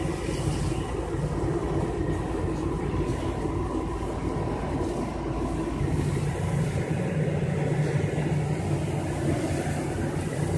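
Fire apparatus engines and pumps running in a steady mechanical drone with a constant hiss, the low hum growing stronger about six seconds in.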